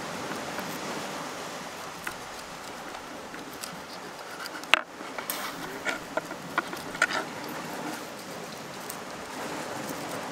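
Steady wind and sea-surf noise, with a few sharp knife clicks and scrapes as a small fish is filleted on a wooden board. The loudest click comes a little under five seconds in, followed by several lighter ones over the next two seconds.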